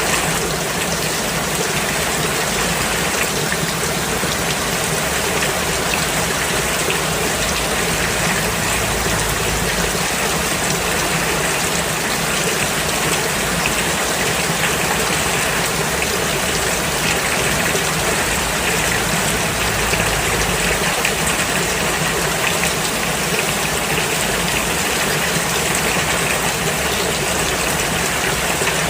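Rain falling steadily and evenly, with no lulls.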